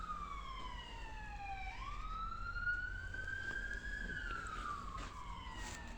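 Emergency vehicle siren wailing: a slow falling pitch, then a rise from about two seconds in, then a long fall again near the end.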